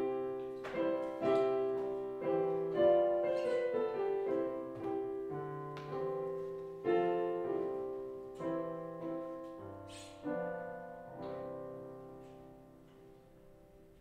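Piano playing a slow run of chords, each struck chord ringing and fading. It ends on a final chord about eleven seconds in that dies away.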